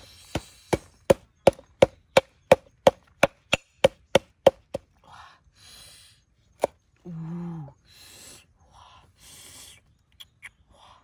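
Large heavy chopping knife chopping red chillies on a round wooden chopping block: about fourteen sharp knocks, roughly three a second, then a single knock and softer handling sounds.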